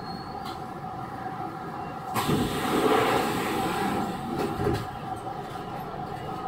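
Chiba New Town Railway 9100 series WN-drive motor car running, heard from inside: a steady rumble with a thin whine. A louder rushing noise swells about two seconds in and fades after about five seconds.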